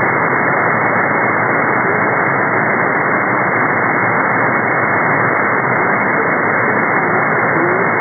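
Shortwave receiver in upper-sideband mode on 2749 kHz giving a steady, muffled band hiss and static, with the weak voice weather broadcast sunk beneath the noise.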